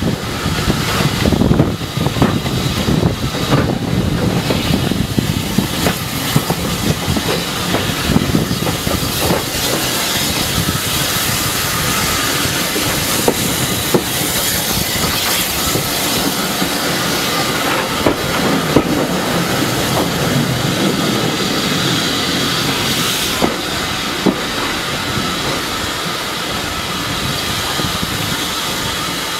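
Steam-hauled passenger train in motion, heard from an open carriage window: the steady rumble and rush of the moving coaches, with scattered sharp clicks of wheels over rail joints.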